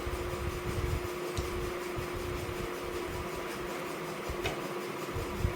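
Steady hum and hiss of a running fan, with soft irregular low thumps and a couple of faint short clicks.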